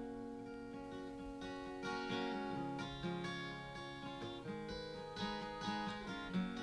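Background music played on acoustic guitar, notes and chords ringing on one after another.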